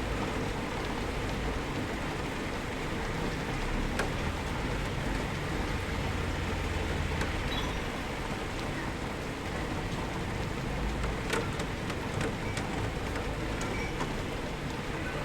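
Steady rainfall heard from indoors: an even hiss with a low rumble beneath and scattered sharp ticks of single drops striking a surface.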